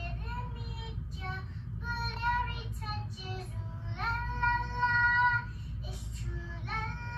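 A young girl singing on her own, her notes bending and breaking, with one long held note about four seconds in.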